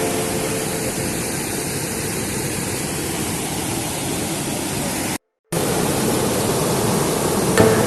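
Steady rushing roar of a waterfall in full monsoon flow. The sound drops out completely for a moment about five seconds in, then resumes.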